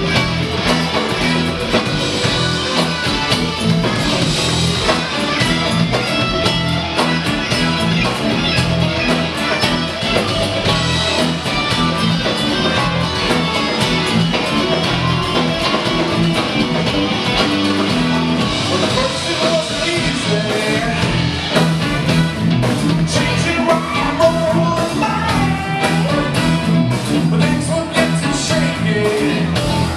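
Live band playing a funk-rock number, with electric and acoustic guitars, drums and congas in a steady groove, and a voice singing over it.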